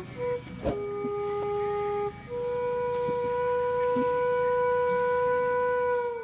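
Intro music on a wind instrument holding two long notes. The second note is a little higher and is sustained for about four seconds before dipping in pitch at the end. There is a sharp click just under a second in.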